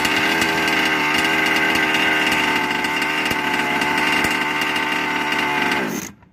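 Small two-stroke gas engine of a 1/5-scale RC truck running steadily, then cut by a remote kill switch about six seconds in, the pitch falling quickly as it dies.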